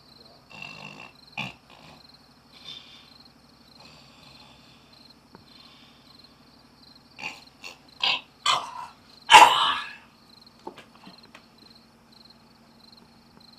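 Night ambience of crickets chirping in an even, pulsing rhythm, broken by a few short animal calls about seven to ten seconds in, the loudest just after nine seconds.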